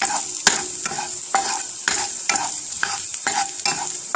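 Minced garlic sizzling in hot oil in a skillet while a wooden spatula stirs it, scraping across the pan about twice a second over the steady hiss of the frying.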